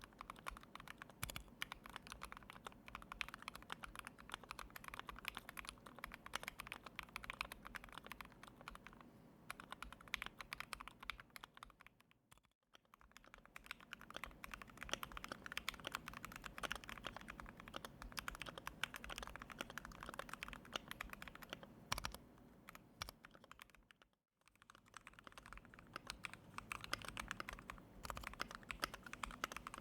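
Fast, continuous typing on a KBDfans D65 mechanical keyboard with lubed and filmed Turquoise Tealios linear switches on an aluminium plate, keycaps clacking. There are two short breaks, just under halfway and about four-fifths of the way through.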